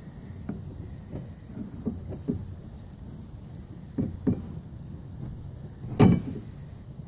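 A calf nosing at the camera and the black plastic rim of its hutch: a string of short, dull bumps, with a sharp knock about six seconds in as her muzzle comes down on the rim. A steady hiss lies under it.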